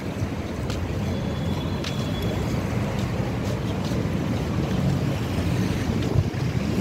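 Busy street traffic: a steady low rumble of buses and other vehicles running close by at the kerb. A faint high whine sounds briefly about a second in, and a single dull thump comes near the end.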